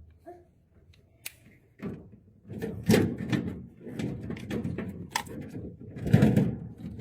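Irregular handling noise: a sharp click about a second in, then clattering knocks and rustling as things are handled, loudest around three seconds and six seconds in.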